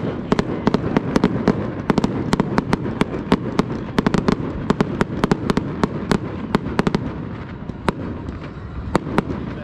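Aerial fireworks display going off: a rapid, irregular string of sharp bangs and crackles, several a second, over a continuous low rumble of shell bursts.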